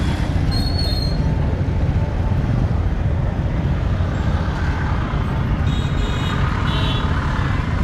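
Busy street ambience dominated by a steady low rumble of traffic, with a few brief high-pitched tones about a second in and twice more toward the end.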